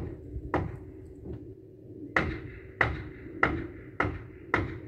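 Hammer driving nails into gable framing lumber: eight sharp strikes, one of them faint, roughly one every half second with a short pause after the first three, each leaving a brief ring.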